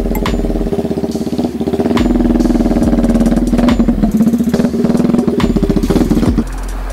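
Chopper-style motorcycle engine running at a steady speed as the bike rides up close and passes by. It grows louder about two seconds in and drops off suddenly near the end as it goes past.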